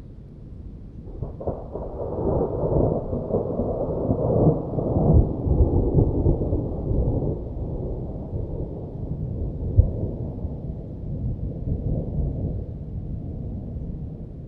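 Thunder rumbling: a long low roll that builds about a second in, peaks over the next few seconds and slowly dies away, with a short sharp crack near the end of the roll.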